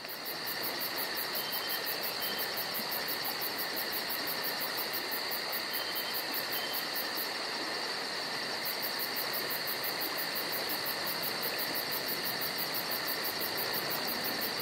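Steady insect chorus of crickets chirping: a very high pulse repeating about five times a second over a continuous high-pitched buzzing.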